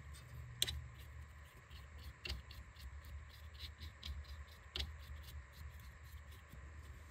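Anti-seize being worked onto the threads of a steering inner tie rod: faint, irregular scratching with light clicks, a few of them sharper, over a low steady hum.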